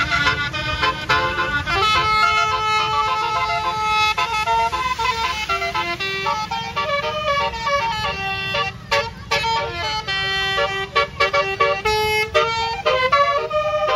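Basuri 'telolet' musical air horn on a bus, a 12-trumpet set, playing a tune in quick changing notes, often several sounding together, over a steady low rumble. The notes come shorter and faster in the second half.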